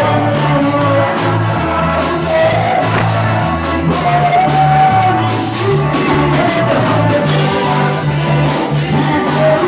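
Worship music: voices singing over instruments, with a bass line moving between held notes.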